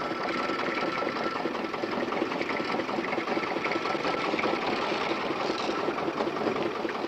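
A small machine running with a fast, steady clatter. A faint thin whine sounds over it and stops a little after halfway.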